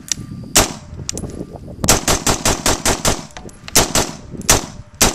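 Suppressed 5.56 mm rifle firing: a single shot, then a quick string of about eight shots, then three more spaced shots.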